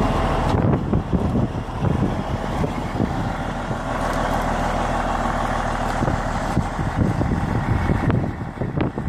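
Kenworth C500 bed truck's Cummins N14 inline-six diesel idling steadily.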